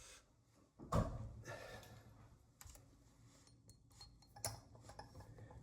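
Scattered light metal clicks and taps as an Allen wrench is worked into the set screw of a faucet handle, with one sharper knock about a second in.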